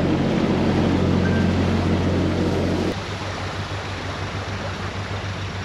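Narrowboat diesel engine running steadily. About three seconds in the sound drops abruptly to a quieter, evenly pulsing beat.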